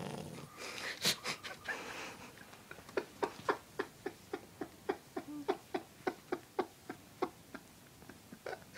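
A sleeping Cavalier King Charles spaniel snoring: one snore at the start, then from about three seconds in a regular run of short, sharp clicking sounds, about three a second.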